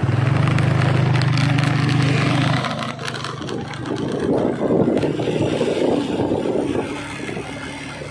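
A motor vehicle on the move along a road: a steady engine hum for about the first two and a half seconds, then a rushing mix of engine, wind and road noise.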